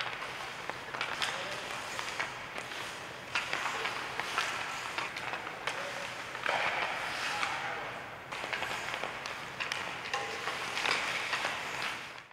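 Ice hockey skate blades scraping and carving on ice, with repeated sharp clacks of hockey sticks hitting pucks and the ice as players stickhandle.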